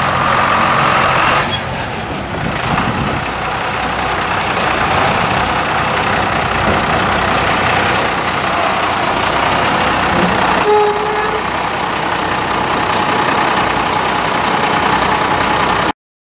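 International 466 diesel engine running steadily while the dump truck's hydraulic hoist lowers the raised box, with a steady whine in the first second and a half. A brief squeal sounds about eleven seconds in.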